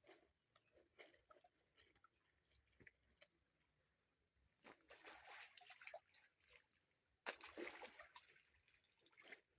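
Faint water sloshing, trickling and splashing as clothes are washed by hand in a river, with a louder splash about seven seconds in.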